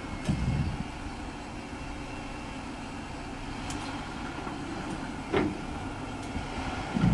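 Engine of a lifted Jeep Gladiator running at low revs as it crawls over slickrock, with one short knock about five seconds in.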